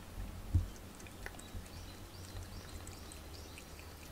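Cat lapping water from a ceramic water bowl: scattered soft ticks, with one louder thump about half a second in. Faint short bird chirps from outdoors in the second half.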